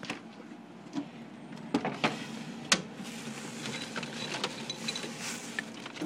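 A cat pawing at a refrigerator door and the food inside: a few sharp clicks and knocks, the loudest about two to three seconds in, over a steady low hum.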